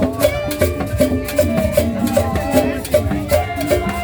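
Upbeat tropical dance music with a steady beat.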